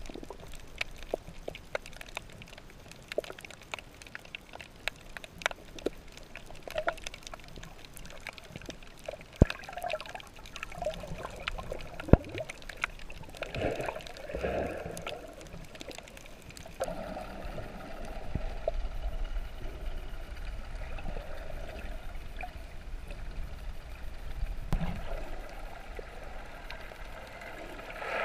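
Underwater sound heard through an action camera: scattered sharp clicks and water gurgling, with a bubbly patch in the middle. About halfway through it gives way to a steadier low rumble.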